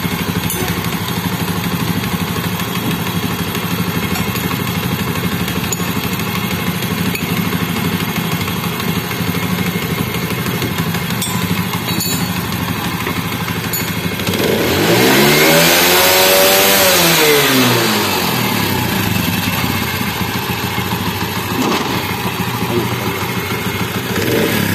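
Honda CD80's single-cylinder four-stroke engine idling steadily after a tappet clearance adjustment, with one throttle blip about two-thirds of the way through that rises in pitch and falls back to idle. The head noise is gone: it sounds 100% like original.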